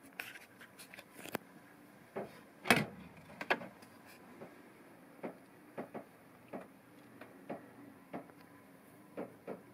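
A hinged wooden lid over a stainless steel galley sink being lifted open and handled: a run of wooden knocks and clicks, the loudest about two and a half seconds in, followed by lighter taps about every half second to second.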